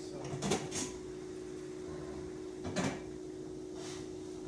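Light kitchen handling noises: a few brief knocks and clatters, about half a second in and again near three seconds in, over a steady low hum.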